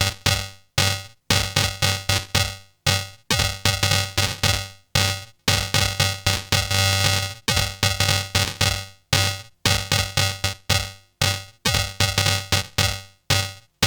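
Electrotango remix music: a chopped, stop-start electronic beat, the sound repeatedly cutting off abruptly and restarting a few times a second.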